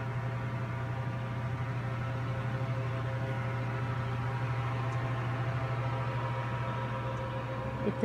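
A steady machine hum, a low drone with a few fainter steady tones above it, holding constant without change.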